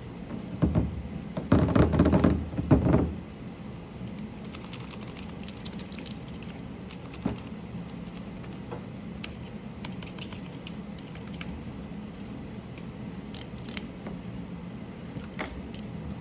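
Mechanical keyboard keys clicking: a loud, dense flurry of clicks in the first few seconds, then scattered light clicks and taps.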